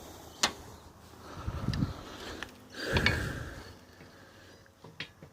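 Metal parts of an engine crane's hydraulic ram being handled during disassembly: a sharp click, then two dull clunks about one and a half and three seconds in, the second with a brief metallic ring, and light clicks near the end.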